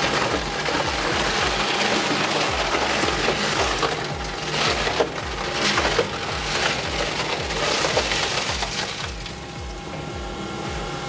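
Wood being crushed and splintered in a heavy shredding machine: a dense, continuous crackling with louder crunches around the middle, over background music with a steady beat.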